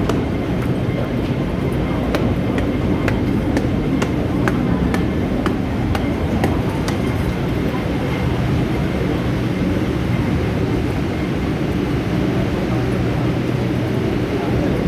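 Steady low rumble and hum of an underground metro station's passageways, with a run of sharp footstep clicks about twice a second during the first half and a faint murmur of passengers' voices.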